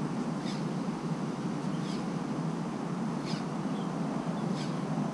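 Steady rush of flowing river water, with a faint short animal call repeating about every second and a half.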